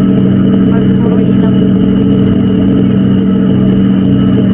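Passenger ferry's engines droning steadily from inside the passenger cabin: a loud, unchanging low hum with a steady higher whine above it.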